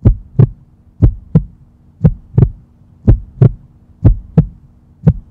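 Heartbeat sound effect: paired lub-dub thumps about once a second, over a faint steady low hum.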